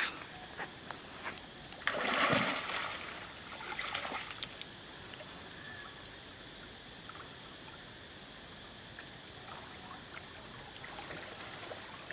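Water splashing as young macaques swim and play in a shallow pool: a loud splash about two seconds in and a smaller one near four seconds, then faint lapping and trickling.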